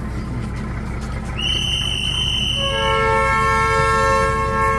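A high, steady whistle blast about a second and a half in. It is followed by a diesel train's air horn sounding a long chord of several tones that runs on to the end. Under both is the steady low rumble of the idling train: the signals for the train to depart.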